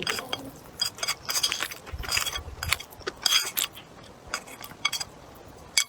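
Close-up eating sounds: an irregular run of short crunchy clicks and light clinks.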